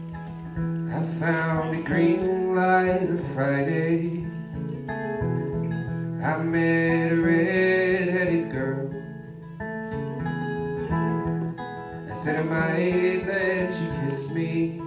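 Acoustic guitar playing a song, with a singing voice coming in three phrases over it.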